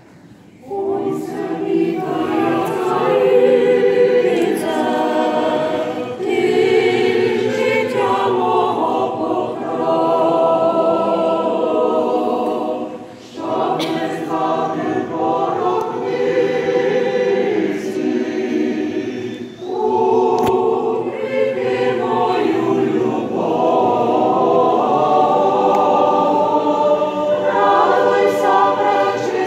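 Church choir singing a liturgical hymn unaccompanied, in long sung phrases broken by brief pauses for breath.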